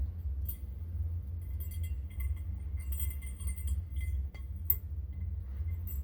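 Light metallic clinks and clicks of small parts being handled, scattered through the middle with one sharper click near the end, over a steady low rumble.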